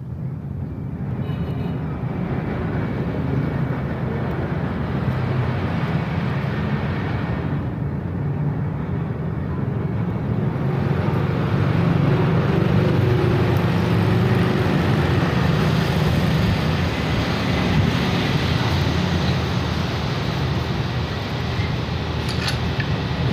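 Steady rumble of motor vehicle engines and traffic, continuous and unbroken, growing a little louder about eleven seconds in.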